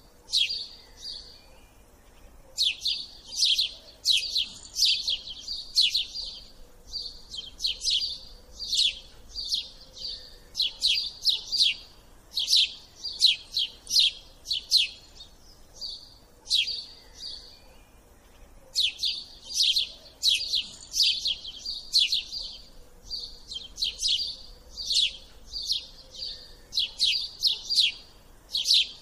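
Small birds chirping, high sharp notes in quick runs of several a second, repeating throughout with short pauses.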